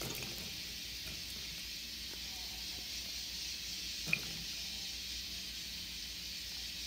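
Sliced onion pieces being laid by hand into a ceramic pot: faint soft handling sounds and one sharp click about four seconds in, over a steady hiss.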